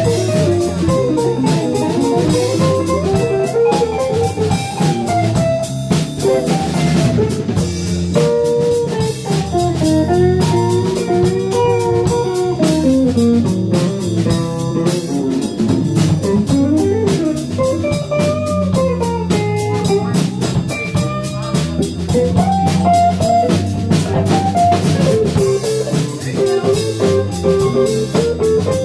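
A live band plays an instrumental passage: electric guitar, Fender bass and drum kit, with a lead melody winding up and down over a steady groove.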